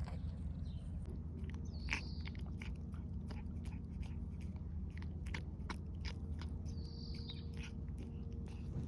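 A cat licking and eating a churu paste treat: quick, irregular wet mouth clicks and smacks. A bird chirps twice, about two seconds in and again near the seven-second mark.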